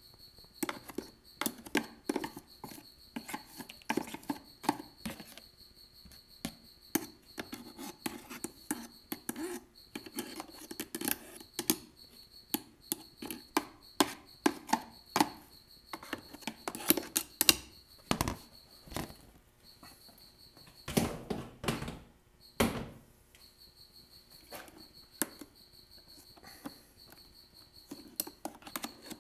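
Irregular scraping, tapping and clicking of a tool against the plastic air filter housing and a plastic trash can lid as a mouse nest of shredded shop towel is scraped out, with a few louder clusters of scraping past the middle.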